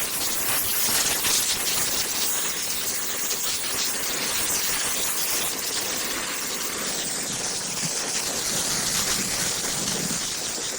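Steady, loud hiss of rushing gas during refrigerant line work.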